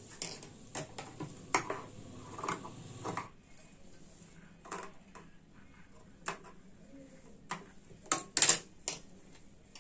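Fabric scissors snipping through cloth in short, separate cuts, trimming a garment neckline, with cloth rustling as it is handled. A cluster of louder clicks comes about eight seconds in.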